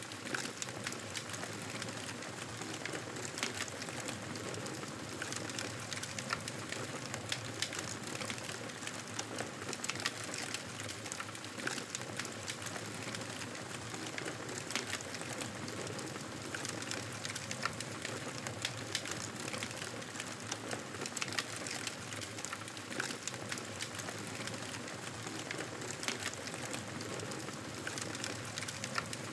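Campfire burning, with wood crackling and popping in many small sharp snaps over a steady hiss of flames.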